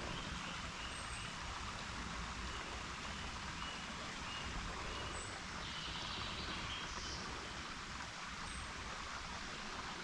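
Steady forest ambience: an even hiss with a few faint, short high-pitched chirps scattered through it.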